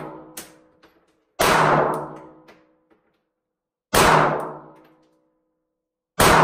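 Three 9mm pistol shots from a Glock 48, slow aimed fire about two and a half seconds apart, each trailing off over about a second.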